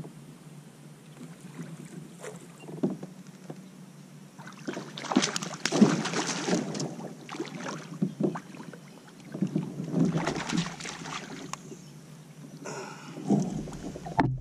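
Water splashing and knocking around a kayak, irregular, louder in two stretches about five and ten seconds in.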